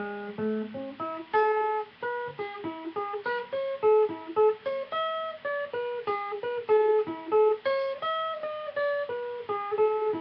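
Archtop guitar played in a steady stream of single picked notes, outlining the chord tones of A and then E and switching back and forth between the two chords.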